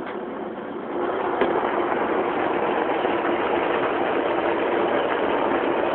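A large vessel of betel nuts boiling vigorously: a steady rushing roar that gets louder about a second in.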